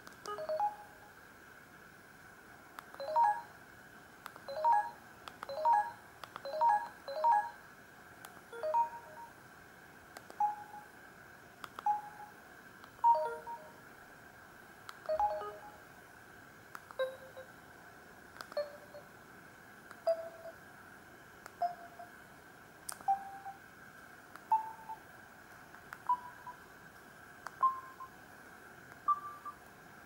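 Samsung GT-C3212 keypad tones: short two-note beeps as keys are pressed through the menus, then nine single key tones about a second and a half apart, each a step higher in pitch than the last, as the digits 1 to 9 are keyed in.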